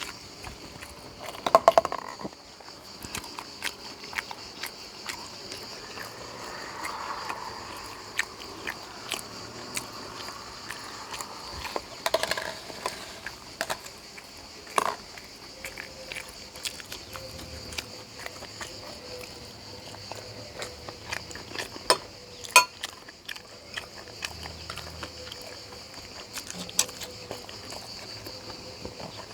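Close-up eating sounds: soft chewing with many small mouth clicks and smacks, plus a few louder clicks of a utensil or dish. A steady high-pitched hum runs behind them.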